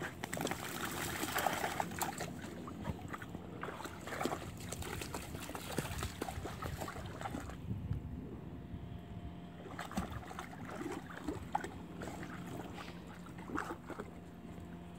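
Two beagles wading in shallow river water, their legs splashing and sloshing the water in irregular bursts, busier in the first half.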